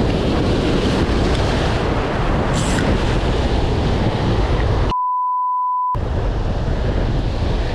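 Wind buffeting the microphone over surf breaking against the rocks, loud and steady. About five seconds in it is cut for about a second by a single steady censor beep.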